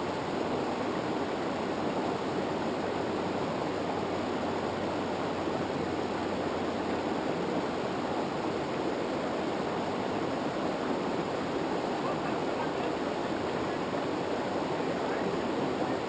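Steady rush of river water over rapids, an even noise with no breaks.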